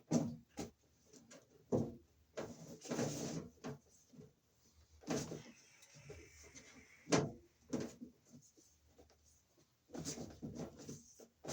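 Electrical cable being pulled and handled: irregular knocks, scrapes and rustles, with a longer scraping rustle about three seconds in and sharp knocks around five and seven seconds in.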